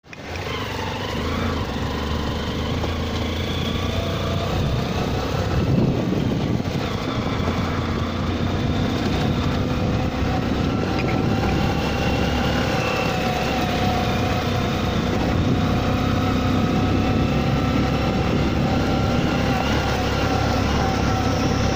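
A vehicle's engine running steadily while under way, a constant low rumble with a steady whine over it.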